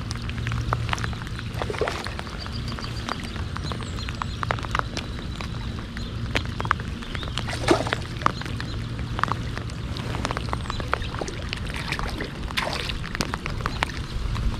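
Water splashing and dripping beside a kayak as a hooked smallmouth bass is played to the landing net, with light rain ticking in scattered drops over a low steady hum; one louder splash comes about halfway through.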